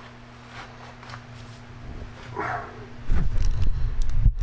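Loud low rumbling handling noise as the camera is picked up and moved close, starting about three seconds in, after a quiet stretch with a faint steady hum and one short vocal sound about halfway through.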